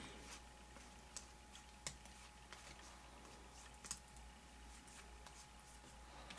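Trading cards being flipped through by hand: a few faint, scattered clicks as the card edges snap against the stack, otherwise near silence.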